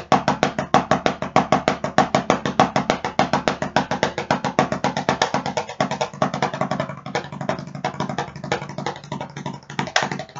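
Wooden drumsticks playing double-stroke rudiments (right-right, left-left) on a rubber practice pad: a fast, even stream of dry taps, each stick bouncing off the pad for its second stroke. In the second half the strokes get softer and run closer together.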